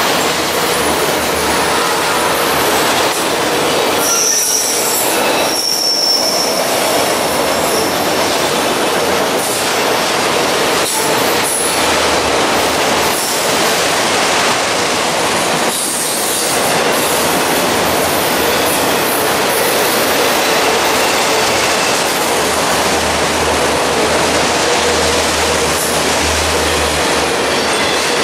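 Freight train of autorack cars passing close by at speed: a loud, steady rush and rumble of steel wheels on rail with clickety-clack, and brief high-pitched wheel squeals a few times.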